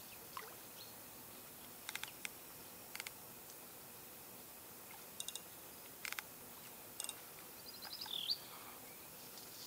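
Fishing reel clicking in short, scattered bursts of a few sharp ticks while a hooked fish is being played on the rod. A bird calls briefly near the end.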